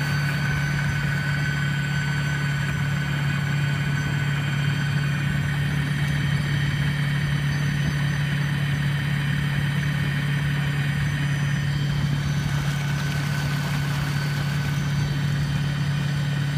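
Torqeedo 1003S electric outboard running at full power, pushing an inflatable boat at about 9–10 km/h: a steady low hum with a few thin, steady whining tones above it, over the wash of water from the wake.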